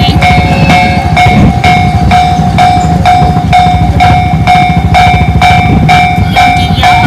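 Japanese level-crossing alarm in the JR standard electronic tone, ringing about twice a second, over the low rumble and wheel clatter of a freight train rolling through the crossing.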